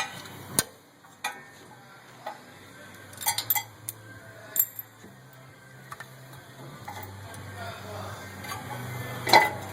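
Sharp metal clinks and clanks of a brake caliper being fitted back over a front brake rotor, coming irregularly with a quick cluster in the middle and the loudest clank near the end.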